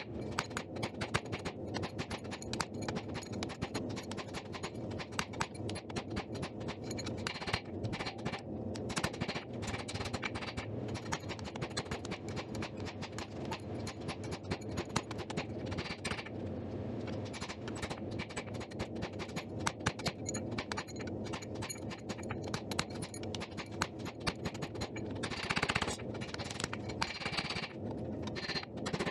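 Hand hammer striking red-hot steel on an anvil in rapid, repeated blows, forging the bar out: the stock being drawn down toward a handle. The blows pause briefly about halfway through.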